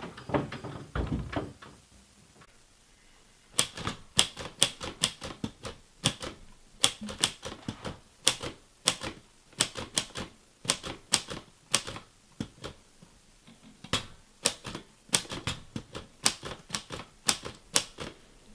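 Typewriter being typed on: a long run of sharp, irregular key strikes in quick bursts with short pauses, starting a few seconds in. A few low thuds come before the typing.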